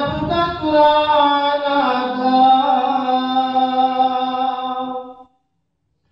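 A man's unaccompanied voice chanting a Saraiki poem (nazm) in long held, slowly bending melodic notes. The line ends about five seconds in.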